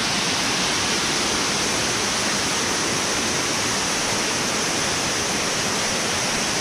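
Waterfall below a dam: water pouring and rushing in a steady, even roar with no change in level.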